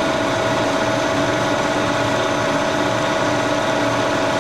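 1942 Brown & Sharpe No. 2 plain milling machine running a cut, spindle at about 1,550 rpm: a steady whine over even cutting and gear noise.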